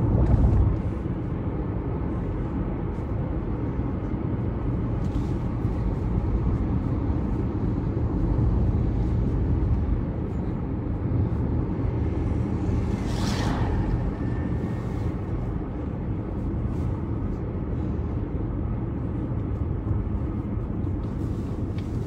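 Steady road and engine noise heard inside a moving car's cabin, with a brief rushing pass about halfway through as oncoming traffic goes by.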